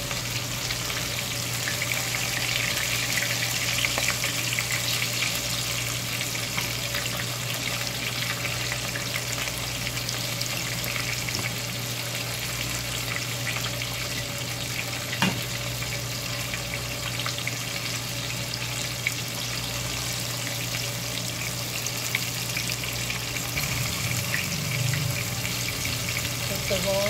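Battered shrimp deep-frying in hot oil, a steady sizzle full of fine crackling. A single sharp click comes about fifteen seconds in.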